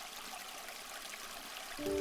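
Water flowing in a stream, a steady trickling hiss. Near the end, soft music comes in with a chord of held notes.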